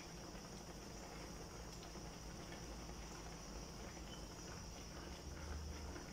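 A pot of sinigang soup simmering faintly and steadily on a gas burner, with a steady hiss and soft bubbling while a ladle stirs it.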